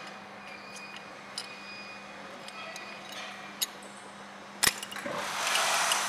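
Open-end spanners working the blade-shaft nut of a manual wire stripping machine: a few small metal clicks, a sharp clink a little before five seconds in, then about a second of scraping as a spanner swings round on the nut.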